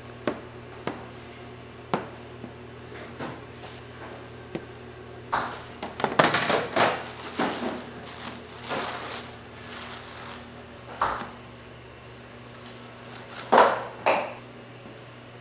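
Plastic wrap crinkling and rustling in bursts as dough pieces are lifted out from under it, with a few light taps as pieces are set down on a parchment-lined metal baking tray. A steady low hum runs underneath.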